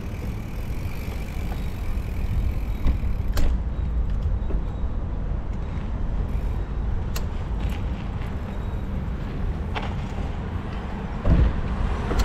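Steady low rumble of wind on the microphone and road noise from a moving push bike, with a few light clicks and a short thump about a second before the end.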